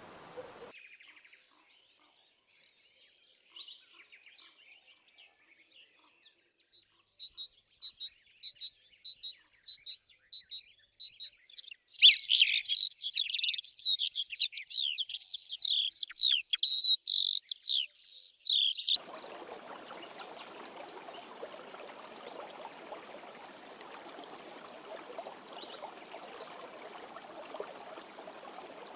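Small songbirds: first faint scattered notes, then a bird repeating a high chirp about twice a second, then a loud, dense song of rapid falling notes. About two-thirds of the way in it cuts off suddenly to the steady rush of a stream.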